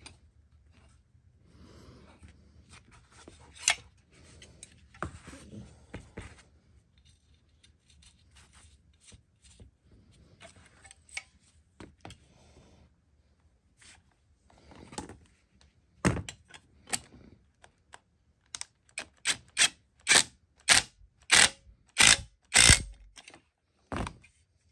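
Metal hand-tool parts of a PVC cutter being handled and fitted together on a workbench: scattered light clicks and knocks, then a quick run of about a dozen sharp clicks, roughly two a second, near the end.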